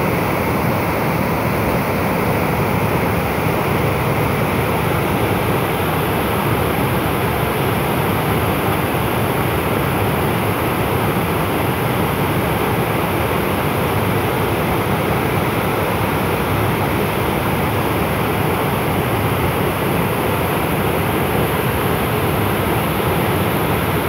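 Waterfall rushing steadily and loudly, a constant noise of white water falling into a river pool.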